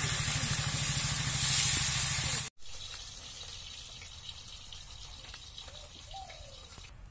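Pieces of fish sizzling loudly as they fry in oil in an iron kadai. About two and a half seconds in, the sound cuts off and comes back as a much quieter sizzle of oil with faint scattered crackles.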